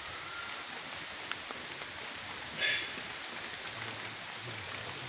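Steady patter of light drizzle on a small river, with a short splash about two and a half seconds in as a cast net moves through the water at the bank.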